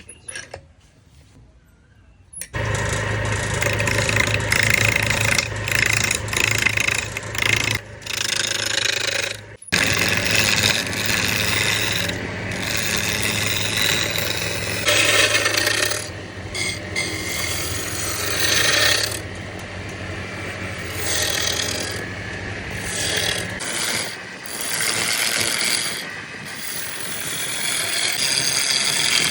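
An electric power tool starts a couple of seconds in and works wood with a loud rasping, grinding sound over a steady motor hum. The hum stops near the end while scraping continues.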